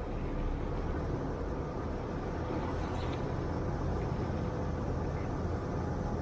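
Off-road vehicle driving slowly along a rutted dirt trail: a steady low rumble of engine and tyres.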